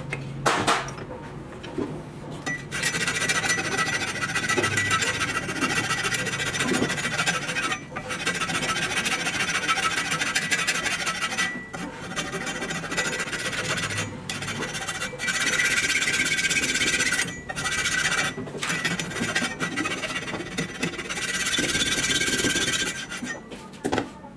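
Flat metal hand file rasping back and forth across a wooden knife handle, shaping it flush with the blade. Filing starts about three seconds in and runs in long spells with a few short pauses, a thin high squeal riding over the strokes.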